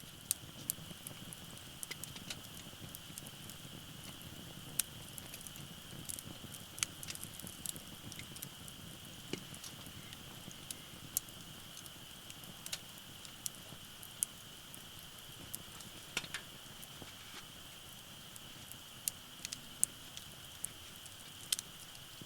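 Wood fire burning in a Uniflame firewood grill fire pit: irregular sharp crackles and pops over a low hiss, with a steady high-pitched tone underneath.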